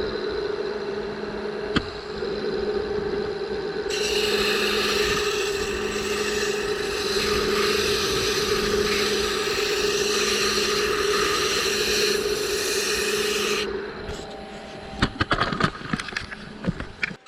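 Wood lathe running with a steady hum while sandpaper is pressed against the spinning poplar lampshade, a loud hiss lasting about ten seconds. Then the sanding stops, a few sharp clicks and knocks follow, and the sound drops away at the very end.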